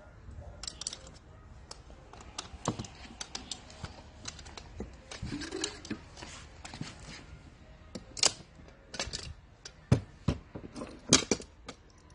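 Irregular clicks and knocks of a folding child seat's metal bracket and fittings being handled and fitted onto an electric scooter, with a few louder clacks in the second half.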